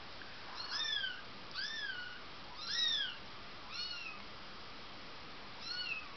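Four-week-old Bengal kitten mewing: five short, high-pitched mews, each rising then falling in pitch, with a longer pause before the last one.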